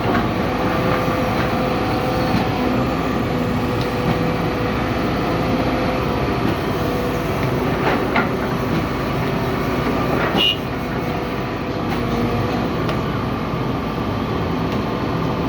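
Excavator's diesel engine running steadily under load, with a sharp metallic clank about eight seconds in and a short squeal a couple of seconds later.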